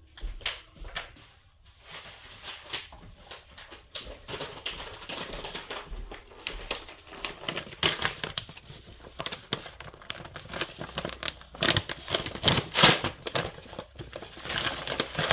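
A plastic bag crinkling and rustling on and off as it is handled, with scattered light clicks and taps.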